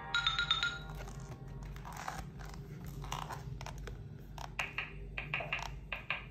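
A short snatch of electronic music from a children's sound book's speaker, cut off within the first second, followed by the stiff board-book pages being turned and handled: a series of scrapes, rustles and light taps.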